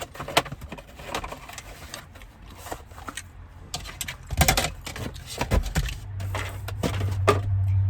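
Close-miked eating sounds: a person biting and chewing pizza crust, with irregular crunches and clicks, the loudest about halfway through. About six seconds in, a low steady hum starts and keeps going.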